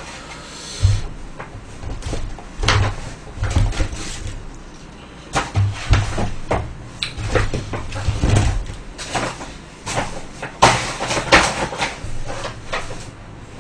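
A cardboard chicken box and paper bag handled by hand: torn, folded and flattened, with irregular crackling and tearing strokes and dull knocks.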